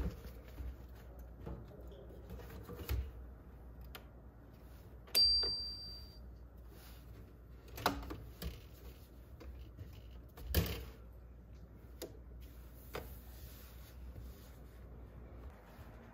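Scattered metallic clicks and knocks from a stainless-steel Kenwood long-slot toaster as pita bread is set into its wire rack and the toasting lever is worked. The loudest knock comes about five seconds in and rings briefly.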